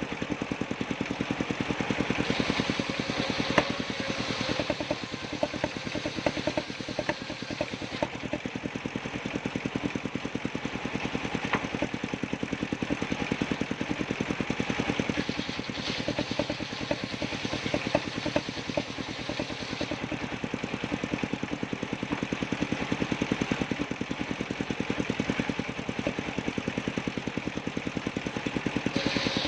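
Engine-driven circular sawmill running with a rapid, even engine beat, the sound swelling and easing every few seconds as the blade cuts through sengon wood.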